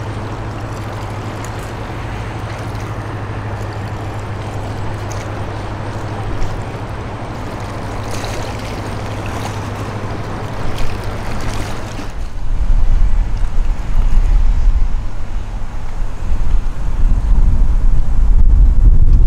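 Steady low hum of a passing Project 588 river cruise ship's diesel engines over a wash of water and background noise. About twelve seconds in, the hum drops out and loud, gusting wind buffets the microphone.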